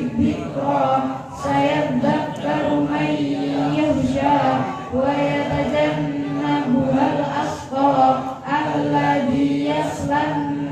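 Girls' voices chanting Qur'anic recitation together in a melodic, drawn-out style, amplified through a microphone, with short breaths between phrases.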